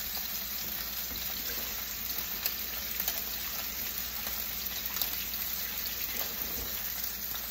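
Steaks frying in hot oil in a pan on a stovetop burner: a steady sizzling hiss with scattered small pops and crackles.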